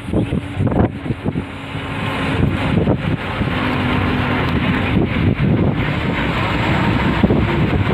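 Wind rushing over the microphone at an open bus window while the bus drives, with its engine and tyre noise underneath. It grows louder over the first couple of seconds, then holds steady.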